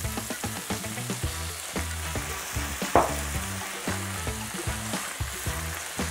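Artichoke hearts and bacon sizzling in a hot frying pan while a splash of water is poured in, with a wooden spatula clicking and scraping against the pan as it stirs. One louder knock about three seconds in.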